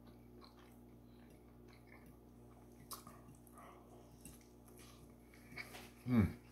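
Faint mouth sounds of a man eating a meatball sub: a few soft wet clicks of chewing. Near the end comes a short voiced sound that falls in pitch.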